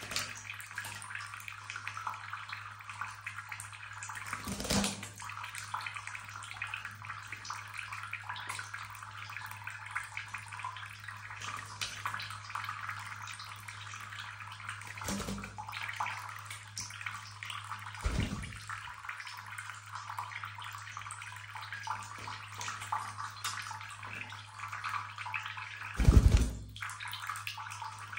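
Washbasin tap running in a thin, steady stream onto a small bird bathing in the basin. A few short thumps and splashes break through the running water, the loudest near the end, as the wet bird flutters and shakes.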